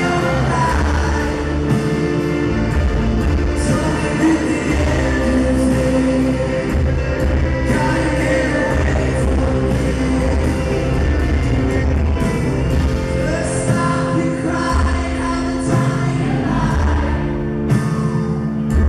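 Male lead vocalist singing live into a handheld microphone over band music through a concert PA, heard from the audience in a large hall.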